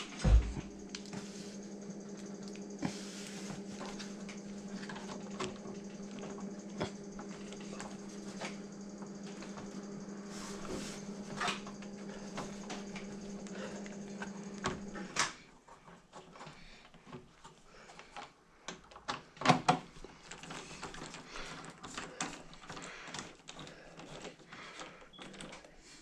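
Scattered clicks, taps and small scrapes of screws being tightened and a hard drive and metal drive bracket being handled, with a few louder knocks past the middle. Under them a steady low hum stops suddenly a little over halfway through.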